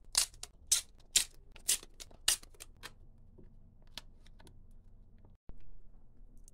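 Brown paper tape being pulled off the roll and torn into short strips: a short rasp about twice a second for the first three seconds, then fainter handling ticks.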